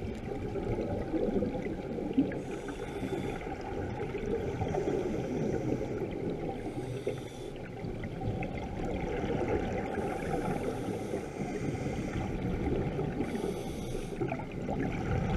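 Scuba divers' regulator breathing heard underwater: a hissing, bubbling exhale about every three to four seconds, four times, over a steady low wash of water noise.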